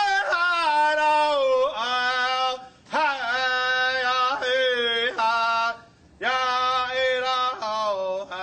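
A solo voice chanting wordless phrases, three of them with short breaks between. Each phrase starts high and slides down to long held notes.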